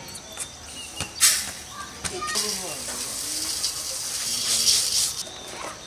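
Food sizzling in hot oil in a pan. The hiss sets in about a second in and stops shortly before the end.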